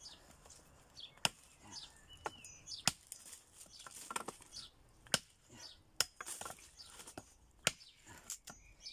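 Machete blade chopping a dry branch laid across a wooden stump, cutting it into firewood: single sharp chops at uneven intervals, roughly one a second.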